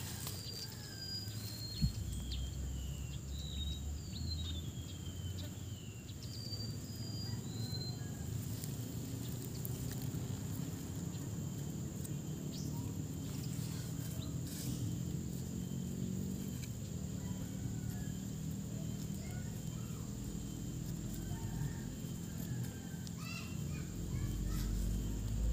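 Outdoor garden ambience: birds chirp repeatedly through the first eight seconds, over a steady high-pitched whine and a low rumble.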